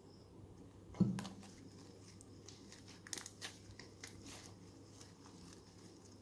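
A single knock about a second in, then irregular crinkling and crackling of a plastic ziplock bag being handled.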